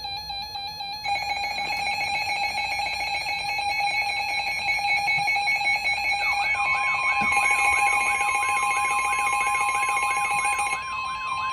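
Emergency Alert System alert tones from several receivers overlapping: a steady multi-tone attention signal starts about a second in. About six seconds in it is joined by a wavering, repeating tone and a single steady tone. Most of the tones cut off together near the end.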